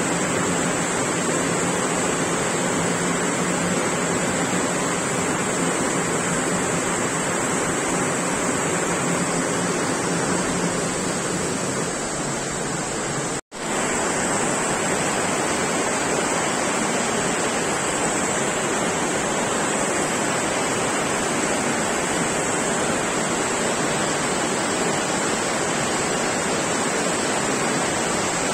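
Heavy monsoon downpour: torrential rain pouring steadily as a dense, even hiss. It breaks off in a brief gap of silence about halfway through, then carries on just the same.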